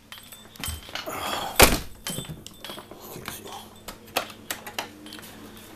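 Scattered knocks and clicks from a person moving about and handling things, with one loud thump about a second and a half in.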